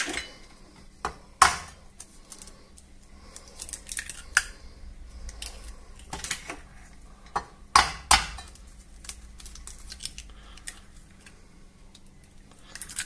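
Eggs cracked one after another against the rim of a ceramic bowl: a series of separate sharp taps and shell cracks, the loudest about a second and a half in and a quick cluster near eight seconds, with lighter knocks of shells set down on the counter.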